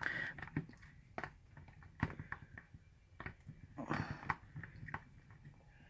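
A spoon stirring thick glue in a bowl, with faint scattered clicks and soft scrapes of the spoon against the bowl.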